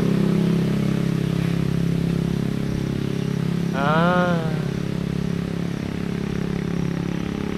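An engine running steadily, an even low hum like a motor vehicle idling. About four seconds in, a person's voice gives a brief call that rises and falls.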